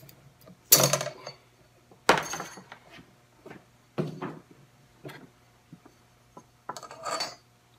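A steel bandsaw blade being handled and looped over a portable bandsaw's wheels, knocking and scraping against the saw's metal wheels and housing: about five separate clacks with a short ring, and a longer rattle near the end.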